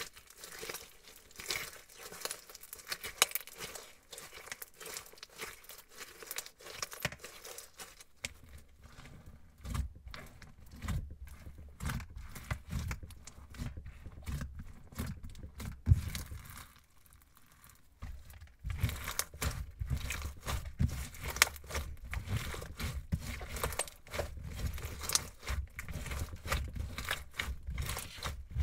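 Crunchy glitter slime studded with beads being squeezed, stretched and kneaded by hand: dense crackling and popping. From about a third of the way in, soft low thumps sound under it as the slime is pressed against the table, with a brief quieter pause just past the middle.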